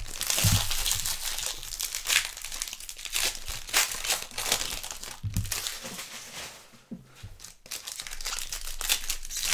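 Plastic trading card pack wrappers crinkling and tearing as packs are opened and handled, with a few low thumps. The crinkling dies down briefly about seven seconds in, then resumes.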